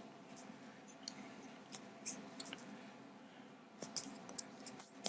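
Faint, scattered small clicks and rustles of handling noise picked up close to a clip-on microphone, over a low room hum.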